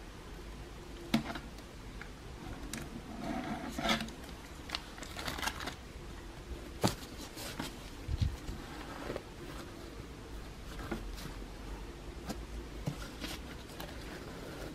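Gloved hands handling a high-top Air Jordan 1 Zoom Air CMFT sneaker: soft rustling and rubbing of its suede and fabric, with scattered sharp clicks and taps, the loudest about a second in and near the middle.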